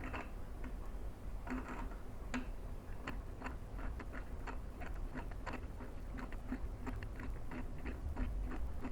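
Bolts on a screwing board being turned and handled, giving irregular small clicks and taps several times a second over a low steady hum.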